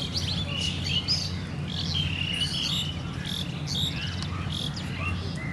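Several small birds chirping and calling in quick short notes that glide up and down, over a steady low hum.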